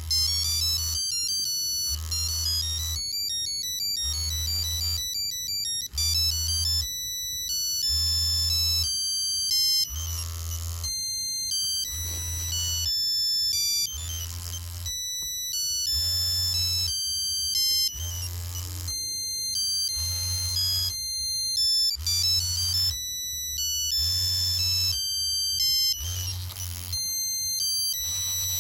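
Nokia 3390 playing a monophonic ringtone: a melody of single beeping notes. A low buzz comes and goes under it in pulses about a second long.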